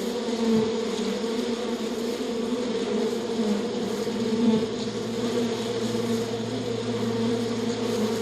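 Flying insects buzzing in a steady drone, with a deeper buzz joining about halfway through.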